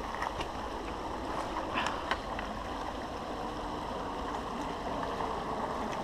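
Small creek running steadily over its bed, with a few brief sharper ticks about two seconds in.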